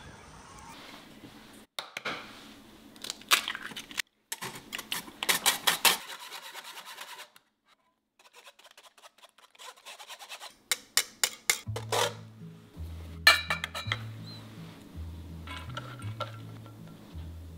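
A wire whisk clinking and scraping against a stainless mesh strainer and steel bowl, working beaten eggs through the strainer, in quick clusters of metallic taps with a short pause between them. Soft background music with a slow bass line comes in about two-thirds of the way through, under a few louder clinks of metal.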